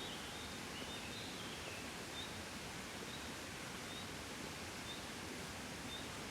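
Gentle breeze blowing steadily as a soft, even hiss. Faint short high chirps recur about once a second, with a brief falling call about a second in.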